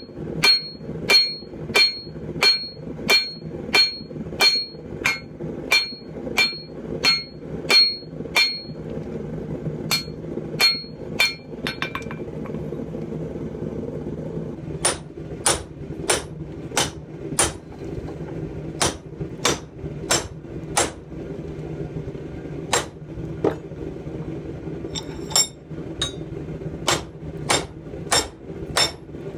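Hand hammer forging red-hot steel of a pipe tomahawk head on an anvil: steady blows about every 0.6 s, each with a ringing note from the anvil. The blows stop for a few seconds near the middle, then resume duller, without the ring, until the end. A steady low hum runs underneath.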